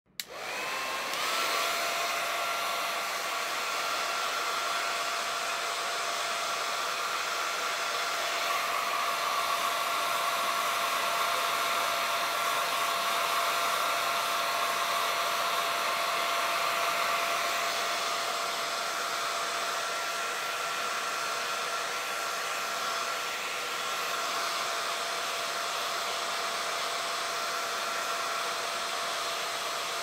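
Conair BlackBird Pro BB075W hair dryer switched on and spinning up within the first second, then running steadily: a rush of air with a steady whine from the fan motor.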